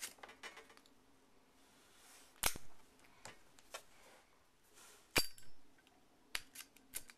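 Zippo lighter's hinged metal lid clinking open and snapping shut, with a few sharp metallic clicks about two and a half seconds apart, each ringing briefly, and fainter clicks between.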